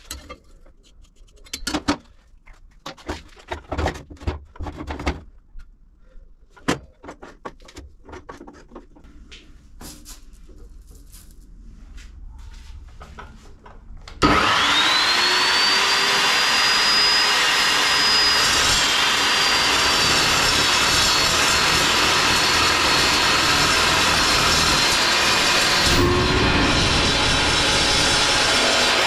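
Knocks and clicks of a steel pipe being set and clamped in a chop saw's vise. About halfway, the Evolution R355CPS 355 mm chop saw starts with a rising whine and then runs loud and steady as its carbide-tipped blade cuts through the pipe.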